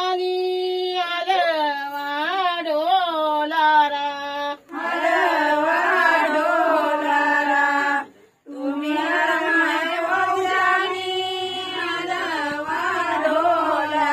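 Women's voices singing a traditional Marathi Gauri folk song without instruments, in long wavering phrases that break twice for breath, about a third of the way in and just past halfway.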